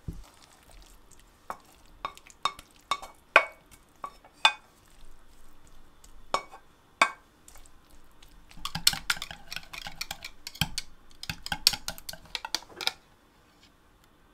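Utensils clicking and scraping in the kitchen: a fork tapping against a pan with single clicks through the first half. Then, for about four seconds near the end, a whisk clatters quickly in a glass measuring jug as eggs are beaten.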